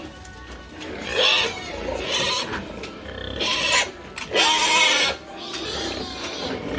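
Pigs squealing: about four loud, shrill squeals, each with a pitch that bends.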